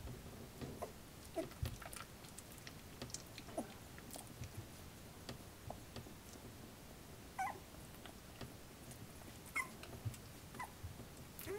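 Twenty-day-old puppies squirming together on a blanket, giving a few faint short squeaks and whimpers, mostly in the second half, over soft rustling and small clicks.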